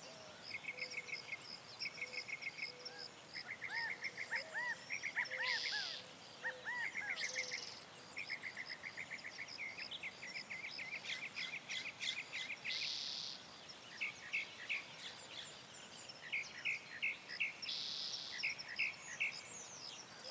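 Birds calling: runs of quick repeated chirps and short rising-and-falling whistled notes, with a few brief hissing buzzes between them.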